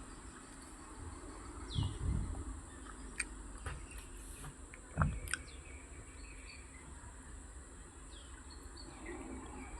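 Outdoor ambience of a steady hiss and a constant high drone. It carries a few short falling bird chirps and low thumps of strong wind buffeting the microphone, loudest about two seconds and five seconds in.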